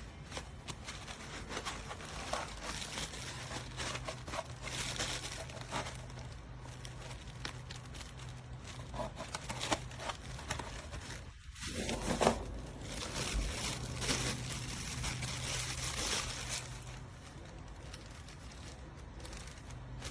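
Handling noise: irregular rustling and crinkling with small clicks and scrapes, over a low hum that comes and goes.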